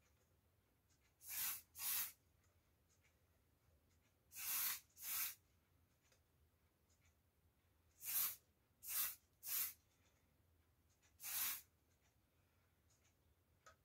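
Eight short hissing squirts of spray, mostly in pairs about half a second apart, with quiet gaps between them.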